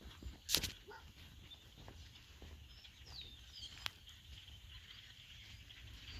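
Faint outdoor ambience with a few short bird chirps a little past the middle, a brief loud rustle near the start and a single sharp click shortly after the chirps.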